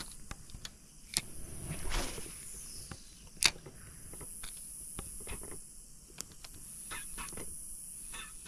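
A spinning rod and reel being handled: scattered sharp clicks and light rustles, one louder click about three and a half seconds in. Under them is a steady, high-pitched buzz of insects.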